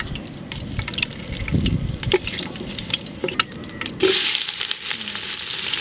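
Hot cooking oil with whole spices in an aluminium pot, crackling with scattered pops. About four seconds in, sliced onions are dropped in and the oil breaks into a loud, steady sizzle.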